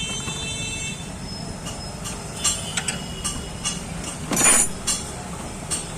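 Hand tools clicking and clinking on the engine over a steady low hum, with a short high-pitched whine in the first second and a louder, noisier burst a little past the middle.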